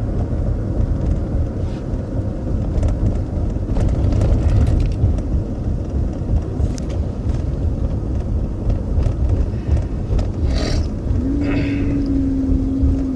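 Lincoln Aviator's 4.6-litre V8 and road noise heard from inside the cabin while driving: a steady low rumble with faint scattered clicks, the clicking-knocking that the owner fears may be timing chain slack, an exhaust leak or an EGR fault. A steady hum joins in about eleven seconds in.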